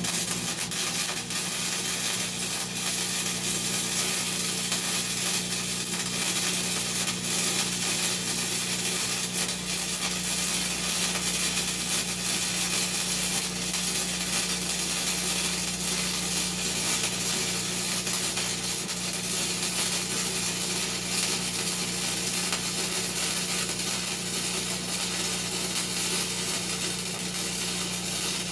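Gasless flux-core wire welder laying a long continuous bead on 3/8-inch steel plate: the steady crackling sizzle of the arc.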